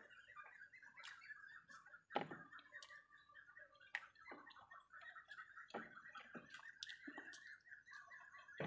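Quiet eating by hand: soft chewing and fingers working rice on a plate, with a few short clicks and knocks, the loudest a little over two seconds in. A steady, high ticking chirr runs underneath.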